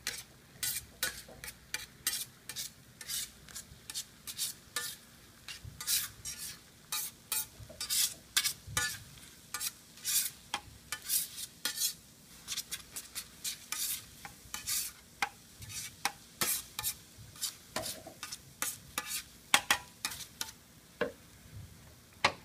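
Metal spatula scraping and chopping scrambled liquid egg across a hot steel griddle platen, in short, irregular strokes about two or three a second.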